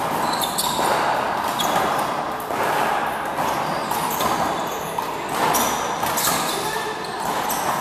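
One-wall handball rally: the small rubber ball smacking again and again off the front wall and the floor as players hit it, with shoes scuffing and squeaking on the court, echoing in a large hall.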